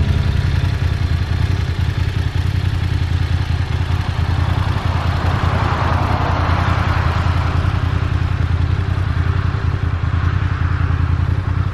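BMW F850 GS parallel-twin engine idling steadily.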